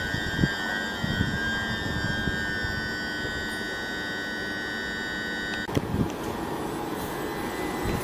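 Thameslink electric multiple unit moving slowly through the station, giving a steady high-pitched whine over the rumble of its wheels. The whine cuts off abruptly about six seconds in, leaving rumbling wheel-on-rail noise with a few knocks.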